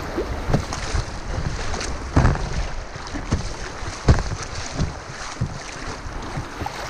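A kayak running whitewater rapids: churning river water with wind buffeting the microphone and irregular sharp splashes, the loudest about two and four seconds in.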